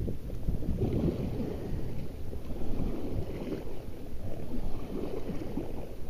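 Water sloshing against an inflatable raft as it is paddled along a calm river, with a low wind rumble on the microphone.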